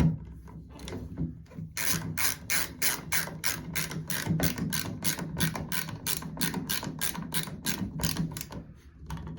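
Hand ratchet clicking in a steady run of about four to five clicks a second as a screw is driven into a Moen shower valve during reassembly.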